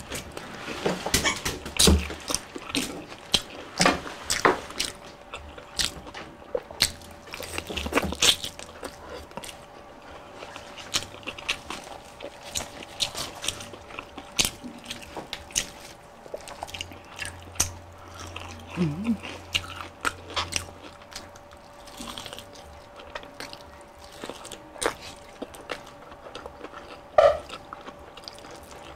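Biting and chewing crispy fried chicken (Jollibee spicy Chickenjoy): the battered skin crunches and crackles. The crunches come thick and fast for the first several seconds, then thin out into slower chewing, with one sharper click near the end.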